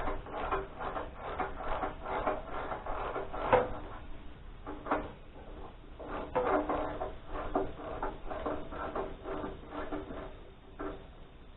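Irregular knocks and clinks of hand tools and metal parts being handled during work on the sawmill's belt cover.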